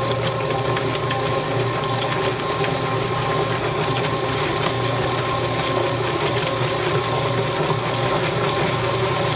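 Yardbird drum chicken plucker running with a scalded broiler chicken inside: a steady electric-motor hum as the spinning plate tumbles the bird against the rubber plucking fingers, stripping its feathers, over a hiss of water spray.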